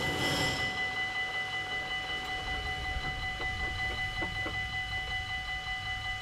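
Dutch level-crossing warning bell ringing in fast, even electronic strokes while the barrier arms rise after a train has passed: the crossing is still active until the barriers are fully up. The last of the passing train's noise dies away in the first second, and a few faint clicks come a few seconds in.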